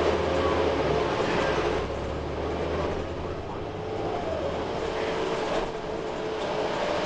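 Interior ride noise of a 2008 Orion VII CNG transit bus under way: its inline-six Cummins ISL-G natural-gas engine and ZF transmission are running, with road noise. The low engine drone eases off about four seconds in, and a whine dips in pitch at about the same time.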